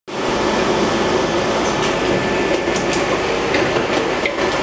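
Steady machinery running with a constant hum, with a few light clicks and rattles of empty plastic water bottles being handled and rinsed.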